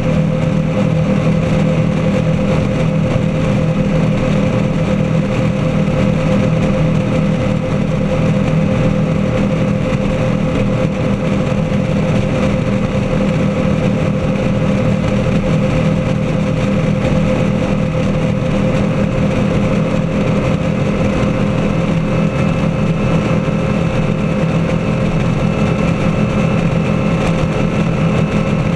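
35-foot Lightning powerboat running at speed, its engines holding one steady drone over the rush of its churning wake.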